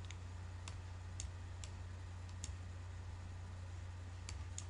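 About eight light, sparse computer-mouse clicks, unevenly spaced, over a faint steady low hum.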